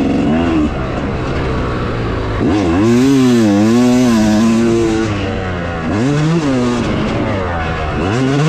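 Yamaha YZ250 single-cylinder two-stroke dirt bike engine revving up and dropping off several times as the throttle is worked, loudest a few seconds in.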